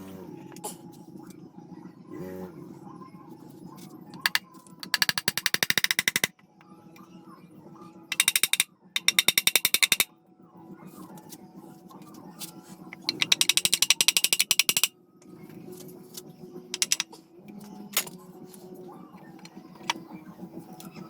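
Rapid, evenly spaced mechanical clicking in three bursts of one to two seconds each, over a faint steady hum.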